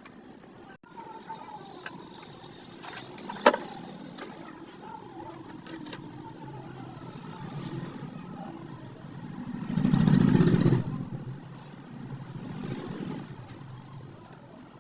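Steady background noise with a motor vehicle passing, loudest for about a second around ten seconds in, with a smaller swell a couple of seconds later. A sharp click sounds a little after three seconds.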